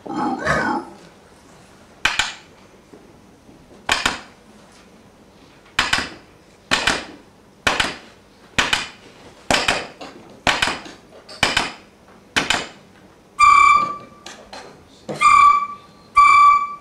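Solo recorder: a run of short, sharp percussive attacks about a second apart, followed near the end by three held high notes of about a second each at the same pitch.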